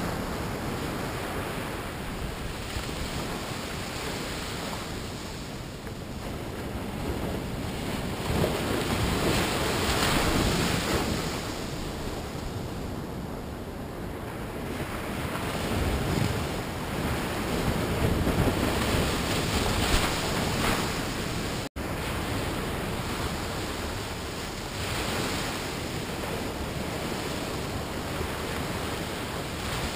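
Ocean surf breaking on a sandy beach, a steady wash that swells and eases as each wave comes in. There is a momentary dropout in the sound about two-thirds of the way in.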